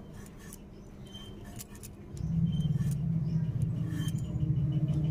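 Potato being cut on a bonti, the upright kitchen blade, with soft sparse cutting clicks. About two seconds in, a steady low hum from an unseen motor or engine starts up and becomes the loudest sound.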